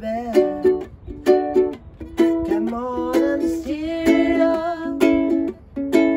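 All-wood Loog soprano ukulele strummed in short, choppy chords with gaps between them, a reggae-style off-beat strum. A man and a woman sing along, both voices together in the middle of the passage.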